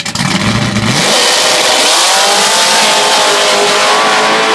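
Fox-body Ford Mustang drag car's supercharged 363 cubic-inch V8 revving at the starting line, then launching at full throttle about a second in on a test pass. It pulls hard down the strip, its engine pitch climbing steadily.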